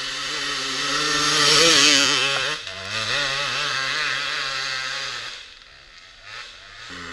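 Enduro motorcycle engine revving up hard, loudest about two seconds in, then running steadily on part throttle before dropping off to a much quieter level near the end.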